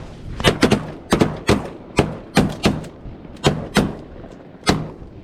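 A volley of shotgun fire from several hunters shooting at incoming ducks: about a dozen sharp reports in ragged clusters, some overlapping in quick succession, each with a brief echo.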